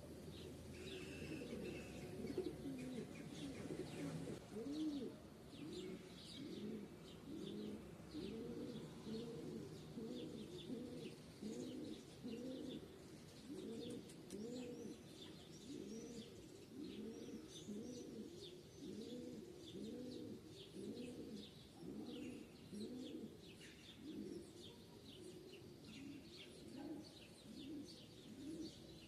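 Small birds chirping in short, scattered calls over a low, soft sound that pulses about once a second.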